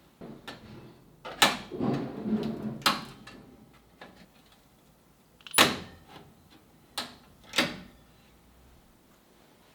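A handful of sharp knocks, five in all, with a rattling clatter around the first two, like hard objects being handled and set down.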